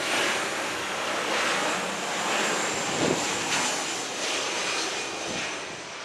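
Jet airliner's engines passing low overhead on its landing approach: a broad, steady rush of jet noise that fades away near the end.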